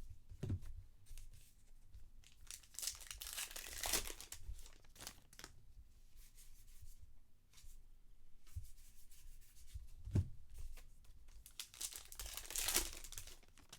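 Trading-card pack wrappers being torn open and crinkled, in two louder spells about three seconds in and near the end, with softer rustling of wrappers and cards between.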